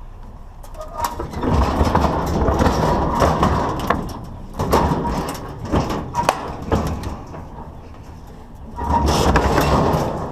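Loud scraping and clattering of scrap metal being worked by hand, in three long bursts with sharp knocks.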